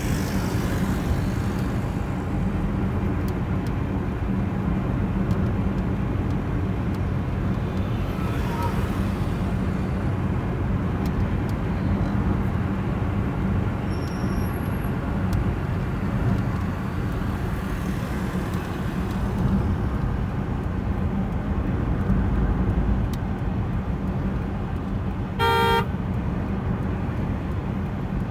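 Steady motor-vehicle traffic or road noise with a low drone, and one short car-horn honk near the end.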